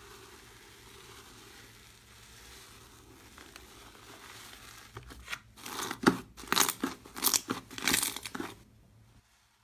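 Bubbly slime being stirred with a plastic scoop and then squeezed by hand: a faint steady crackle at first, then a run of loud crackling clicks from about five and a half seconds in that dies away near the end.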